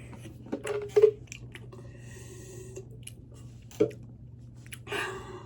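A person chewing food with wet smacks and mouth clicks, a few scattered sounds with a louder smack near the end.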